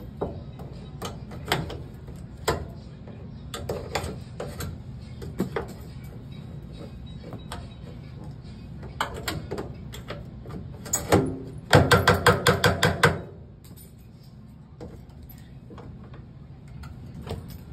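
Scattered clicks and knocks from parts of a Samsung dryer being handled, with a quick run of about eight sharp knocks past the middle, the loudest thing here, over a steady low hum.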